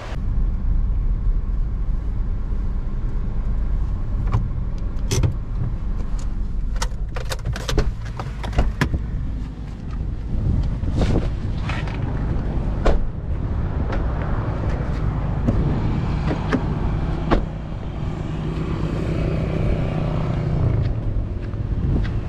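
Car sounds: a steady low rumble of a car, with a run of sharp clicks and knocks through the middle, as of a car door and its fittings being handled.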